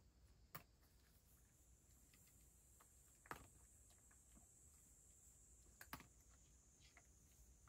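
Cat eating dry kibble from a shallow dish: faint irregular crunching and clicking as it chews. Three sharper clicks stand out, about half a second, three seconds and six seconds in.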